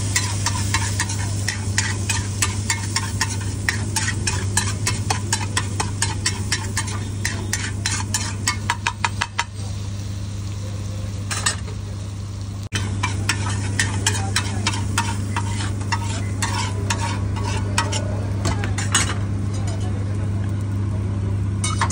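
Steel spatula rapidly clinking and scraping on a large flat iron griddle (tawa), chopping and spreading a sizzling egg mixture, at several strikes a second. The strikes pause briefly about halfway, over a steady low hum.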